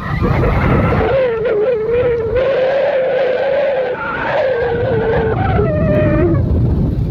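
Engine of a moving road vehicle running at steady speed, its note wavering slightly, with wind rumble on the microphone.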